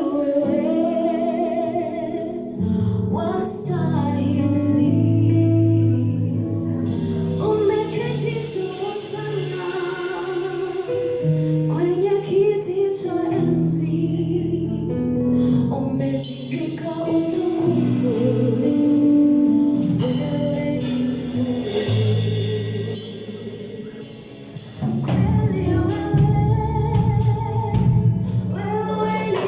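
Gospel worship song sung live with instrumental accompaniment, voices carrying the melody over sustained low chords.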